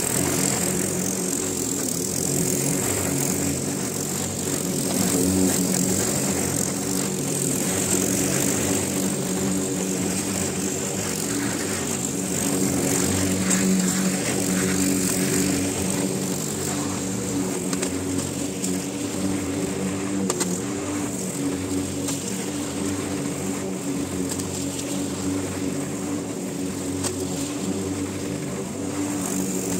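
Walk-behind petrol lawn mower engine running steadily while cutting grass, a constant drone with small rises and dips in level as the mower is pushed.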